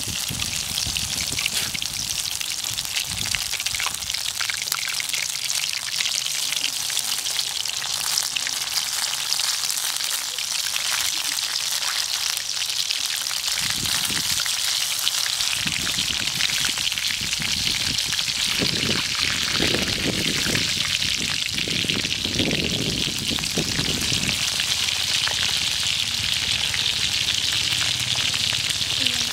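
Flour-battered grasshoppers deep-frying in hot oil in a steel wok: a steady sizzle that grows a little louder in the second half. Some duller low noises come and go from about halfway to three-quarters through.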